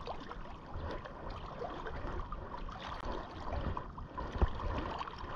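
River water rushing and lapping close by, an uneven splashy wash around a wading angler.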